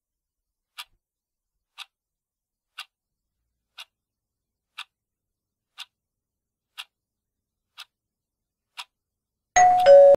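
Countdown-timer sound effect: a clock ticking once a second, ten ticks as the timer counts down. Near the end it gives way to a short, louder time's-up signal with two steady tones, the second lower, as the timer reaches zero.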